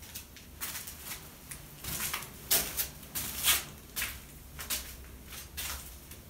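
Irregular scuffing footsteps across a floor strewn with tile-leveling clip debris, about a dozen short scrapes and rustles, loudest about two and a half and three and a half seconds in.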